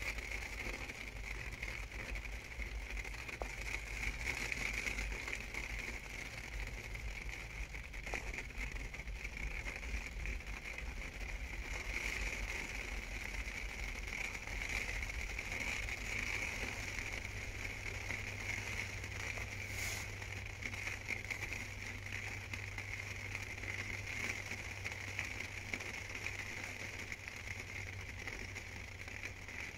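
Rain pattering steadily on a small bicycle camper: a soft even hiss with fine ticks of drops striking.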